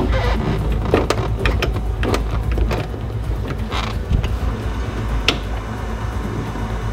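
MG Midget 1275 four-cylinder engine being turned over on the starter, cranking steadily without catching, with mechanical clicks and creaks over the low rumble.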